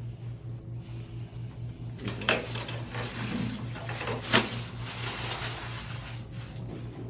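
Two sharp cracks about two seconds apart, amid the rustle of bodies and clothing shifting: joints popping under a chiropractic adjustment.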